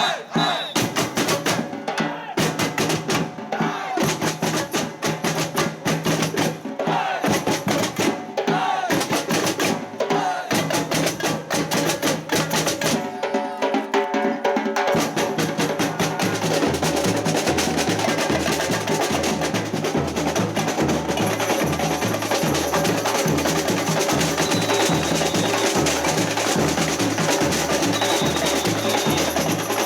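Samba percussion band playing: dense, rapid drum strikes, with a steady low bass-drum beat coming in about halfway and filling out the groove.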